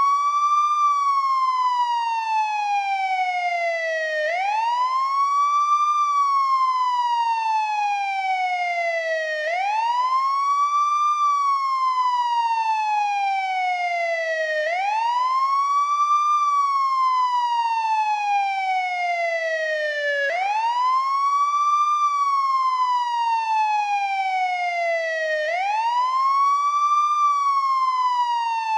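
American police siren on its wail tone. Its pitch sweeps up quickly, then glides slowly down, over and over in an even cycle of about five seconds.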